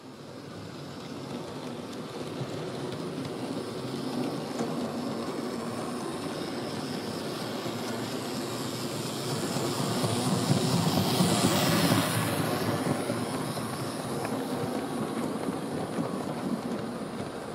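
Model LBSCR A1X 'Terrier' 0-6-0T tank locomotive hauling model coaches, its motor and wheels running on the track. It grows louder as the train comes near, is loudest about two-thirds of the way through as it passes close by, then eases off.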